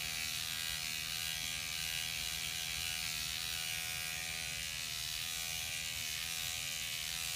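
Rejuvapen electric microneedling pen running with a steady motor buzz as its needle tip is worked over facial skin.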